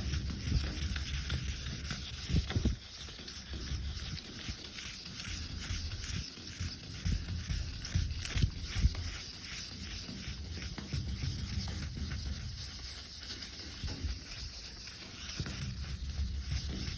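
Hand wet-sanding of cured clear coat with 2000-grit paper on a sanding block: a soft rubbing scrape stroke after stroke, with low thuds and rumble mixed in.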